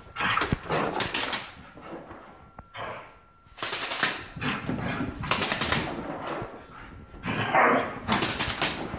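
A German shepherd puppy doing fast laps of a living room, its paws scrabbling and thudding on carpet and furniture in quick flurries that come and go as it passes close by. A louder flurry comes near the end.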